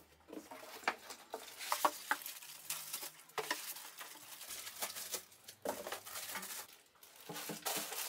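Unpacking noises: cardboard box flaps being handled and a plastic bag rustling and crinkling as a packed machine part is lifted out and set down, with scattered small knocks and clicks.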